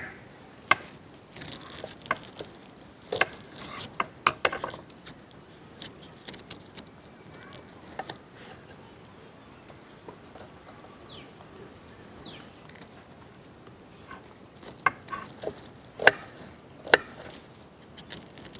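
A knife clicking and tapping as small onions (shallots) are peeled and cut: scattered sharp knocks with pauses, busiest in the first few seconds and again near the end, quieter in the middle.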